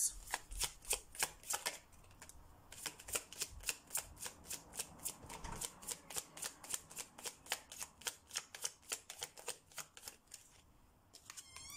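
A tarot deck being shuffled in the hands, the cards slapping in a quick, even patter of about four a second, with a short pause about two seconds in.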